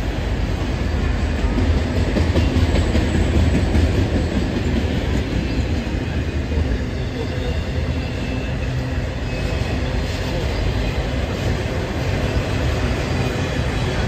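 Autorack freight cars rolling past on steel wheels and rails: a loud, steady, deep rumble that swells a little a few seconds in.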